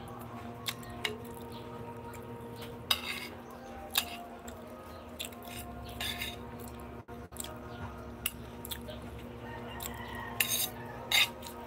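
Metal spoon scraping and clinking against a plate while eating, in irregular sharp strokes, a few of them louder, over a steady low hum.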